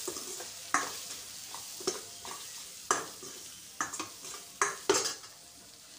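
Steel spoon scraping and clinking against a stainless-steel kadhai as onion, tomato and spices are stirred in hot oil, about one stroke a second over a light sizzle. It quietens in the last second.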